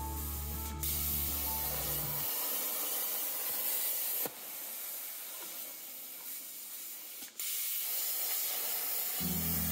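Plasma cutter hissing steadily as the CNC torch cuts steel sheet, with two sharp clicks partway through. The gantry's stepper motors whine at stepped pitches for about the first two seconds and start again near the end.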